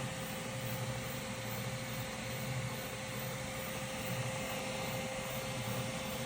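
Elegoo Centauri Carbon 3D printer running: a steady whir of fans with a thin constant tone and a low hum that swells and eases slightly.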